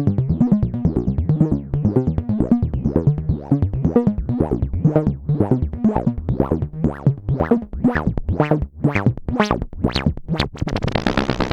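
Synthesizer notes played through the SetonixSynth Marsupial Eurorack analog filter: a quick run of short notes, each opened and closed by an ADSR envelope sweeping the filter cutoff. The notes grow brighter toward the end, with a brief hissy burst near the end.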